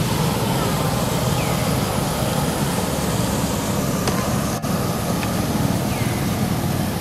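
Steady rushing background noise, with two faint short chirps, one early and one near the end.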